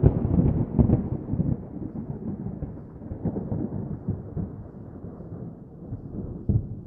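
A deep rolling rumble with irregular crackles, loud at the start and fading slowly over several seconds.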